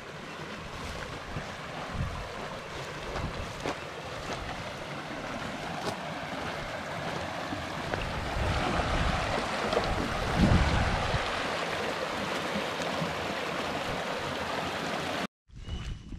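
Creek water rushing over rocks in small rapids, a steady wash that grows louder about halfway through, with wind buffeting the microphone. It cuts off suddenly near the end, giving way to footsteps on a dirt track.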